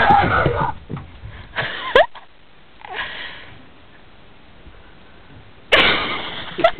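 A person sniffing and breathing sharply in a few short, loud bursts, the longest near the end.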